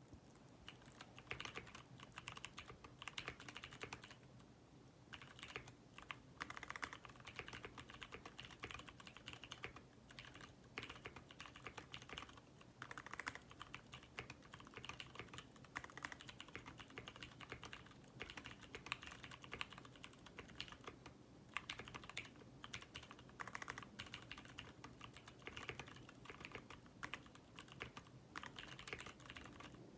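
Fast, continuous typing on a mechanical keyboard fitted with Ergo Clear switches: rapid key clicks with a couple of short pauses, over a faint steady hum.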